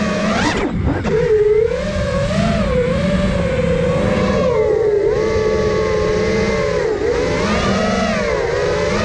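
The brushless motors and propellers of an iFlight Nazgul Evoque 5-inch freestyle FPV quadcopter whine in flight, their pitch rising and falling with the throttle. About half a second in there is a sharp punch: the pitch shoots up and drops back. A steady low rushing noise runs underneath.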